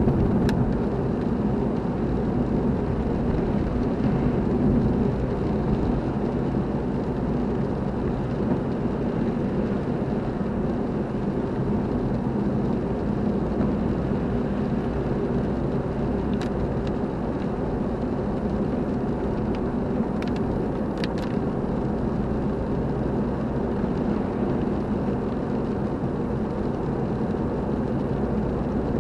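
A car driving at a steady pace: a constant low engine and road drone, with a few faint clicks about twenty seconds in.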